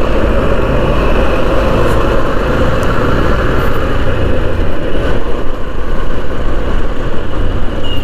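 Riding noise from a Honda SP125 motorcycle on the move: a steady rush of wind over the microphone, with engine and road noise underneath.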